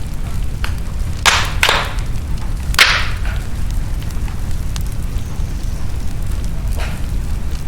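Wood fire crackling in a fireplace: a steady low rumble with sharp pops, three loud ones between about one and three seconds in and a fainter one near the end.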